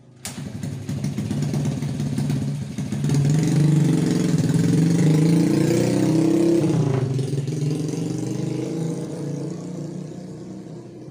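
A motor vehicle's engine close by, coming in suddenly and running with a wavering pitch. It grows louder over the first few seconds, then gradually fades.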